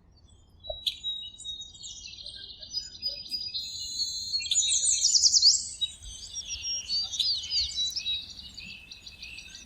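Several small birds chirping and trilling at once, a busy chorus of quick high calls that grows fullest about five seconds in.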